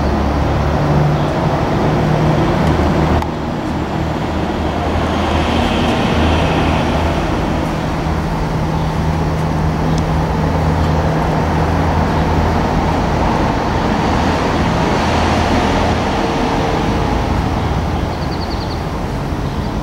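Steady drone of running machinery with a low hum, continuous throughout; it dips slightly about three seconds in.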